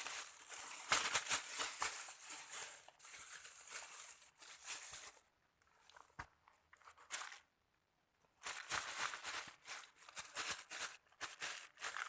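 Close rustling and crinkling, in irregular stretches, with a silent break a little past the middle.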